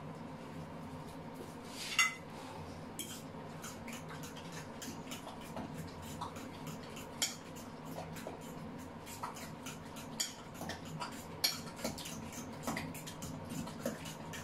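A utensil clinking and scraping against a ceramic bowl while beaten eggs and fried potatoes are mixed for a potato omelette: irregular light clicks, with one louder knock about two seconds in.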